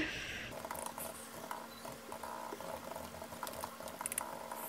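Light, scattered clicks of typing on a keyboard, with a faint steady hum underneath.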